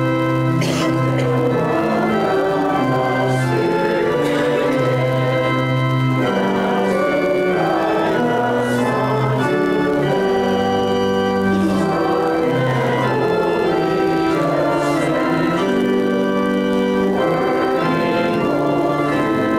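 Church organ playing a hymn tune in sustained chords that change every second or so.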